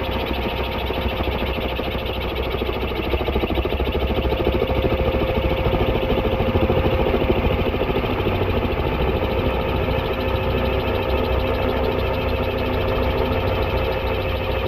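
Radio-controlled scale model Bell 212 helicopter in flight, slowed to 30% playback speed, so its main rotor gives a rapid flapping beat much like a full-size helicopter's. Under it runs a steady whine.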